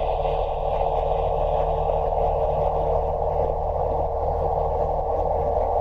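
Piper Archer's four-cylinder engine at full takeoff power, heard through the headset intercom as a steady, narrow-band hiss over a low, even hum.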